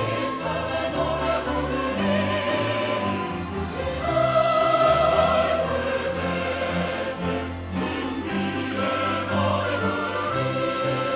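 Mixed-voice church choir singing a hymn anthem, accompanied by a string ensemble of violins and cellos and a piano. The sound swells louder about four seconds in.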